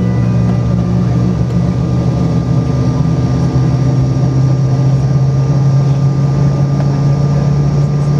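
Inside the cabin of a Bombardier CRJ900, a steady low hum from its rear-mounted turbofan engines and cabin air, with one tone rising slowly in pitch.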